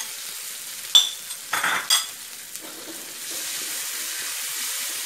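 Chopped bird's eye chilies and garlic sizzling in hot oil in a wok, stirred with a metal spatula that clinks sharply against the wok about a second in and scrapes and clanks just before two seconds. The sizzle grows a little louder from about three seconds in.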